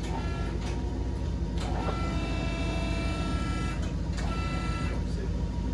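Scissor car lift's electric hydraulic pump running steadily as it tilts the front of the lift up, a low hum with a high whine that comes and goes several times.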